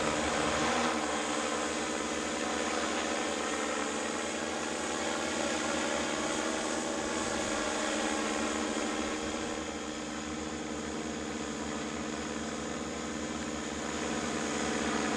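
Eagle XF quadcopter drone's propellers and motors in flight: a steady hum made of many pitched tones. It gets a little quieter about two thirds of the way through.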